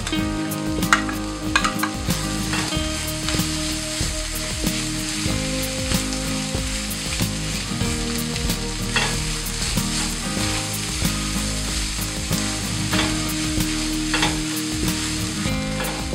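Minced beef, onions and peppers sizzling in a stainless steel pan while a wooden spoon stirs them, with a few sharp knocks of the spoon against the pan.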